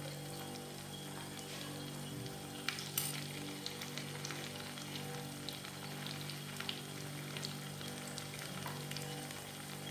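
Cauliflower fritters sizzling and crackling in hot frying oil in a pan, with a couple of sharp clicks about three seconds in.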